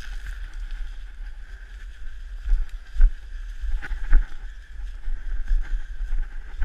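Footsteps crunching through dry leaf litter with a few sharp knocks about three and four seconds in and near the end, over a steady low rumble of handling and wind noise on a body-worn action camera.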